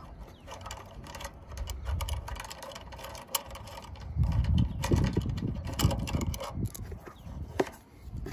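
Light clicks and scrapes of a hand working the red supply wires on the terminal block of an electric hot water element, with gusty low rumbling from about four to seven seconds in.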